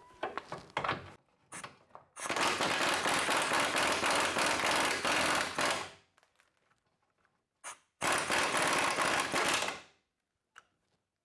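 Impact wrench hammering on a rusted camber-bolt nut on the rear suspension arm, undoing it: a run of about four seconds, a pause, then a second run of about two seconds.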